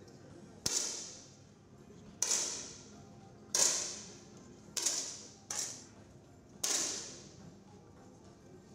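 10 m air rifle shots in an indoor shooting hall: six sharp pops at uneven intervals, about a second or more apart, each ringing off the hall for about a second.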